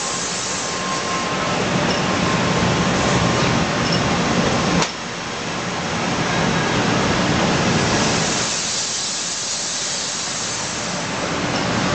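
N700 series Shinkansen train rolling slowly past at close range: a steady rumble and hiss from its running gear. About five seconds in there is a sharp click, and the level drops suddenly before building back up.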